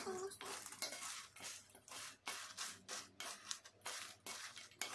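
Plastic spoon stirring broken Marie biscuits in a stainless steel mixing bowl: a quick run of scrapes against the bowl mixed with the crunch of the biscuit pieces, several strokes a second.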